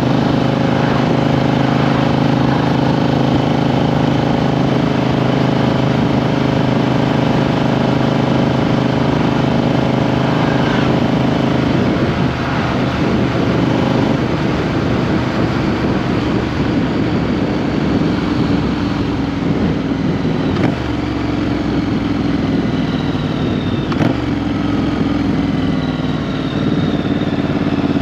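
A Triumph Street Twin's 900 cc parallel-twin engine running under way, heard close from beneath the seat. The engine note holds steady for the first part, then shifts and drifts in pitch about halfway through as the riding changes.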